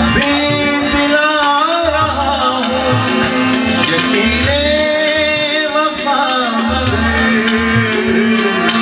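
A male voice singing a ghazal in long, ornamented phrases, accompanied by a harmonium holding a steady note and a tabla playing deep, regular strokes.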